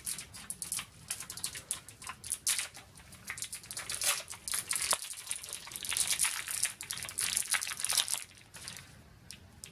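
Small clear plastic toy bag from a Kinder Surprise egg crinkling as it is handled and opened, a dense run of quick crackles that dies down about eight seconds in.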